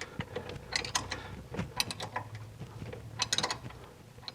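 A wrench tightening the mounting nuts of an EMPI 34 dual-carburetor setup, with quick metallic clicks in three short runs.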